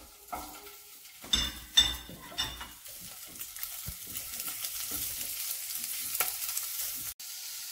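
Pieces of fresh pork sausage frying in oil with sliced onion in a non-stick pan, a sizzle that grows steadily louder. In the first few seconds a few clattering knocks come from the pan as the pieces go in and are pushed around with a wooden spatula.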